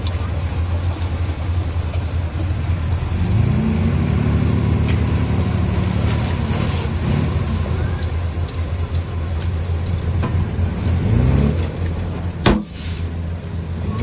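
Komatsu D31P bulldozer's diesel engine running steadily as it pushes, its pitch rising and easing back a couple of times as it revs. One sharp knock comes near the end.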